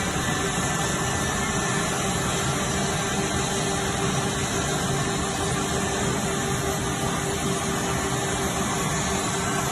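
Woodworking edge banding machine running steadily: an even mechanical whir with a constant hum.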